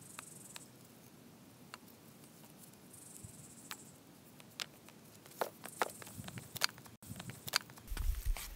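Insects buzzing in short spells, with scattered clicks and crackles that come more often in the second half, and a low rumble near the end.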